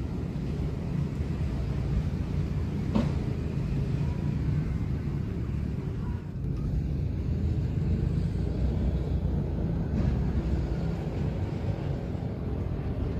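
A steady low rumble, with a faint click about three seconds in and another about ten seconds in.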